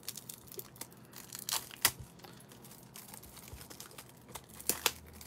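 Plastic wrap on a stack of trading-card top loaders being torn open and crinkled, with a few sharp crackles about one and a half to two seconds in and again near the end.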